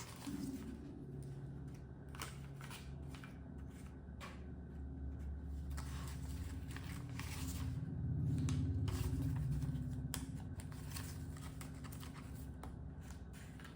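Paper banknotes being handled and shuffled, with short rustles and snaps of the bills, over a low steady rumble in the background that swells for a couple of seconds about eight seconds in.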